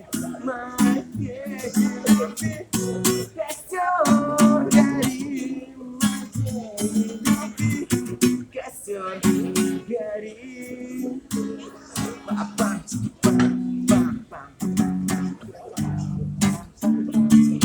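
Music: an acoustic guitar strummed in a steady rhythm through the instrumental passage of a song, with a voice heard briefly about four seconds in.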